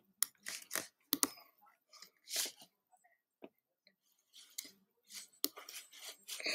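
Faint, scattered clicks from someone working a computer: a handful of sharp clicks among softer rustles.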